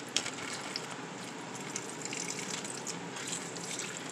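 Liquid marinade pouring into a plastic zip-top bag over raw beef, a steady splashing trickle.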